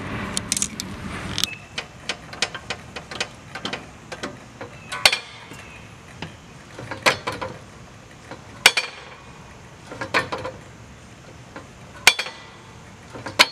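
A wrench clicking quickly for about a second and a half as the spring adjuster is turned. Then a string of sharp clacks every second or two as the foot pedal works the spring-loaded GrassFlap discharge flap on a Scag V-Ride II 32-inch deck open and shut, testing the spring tension.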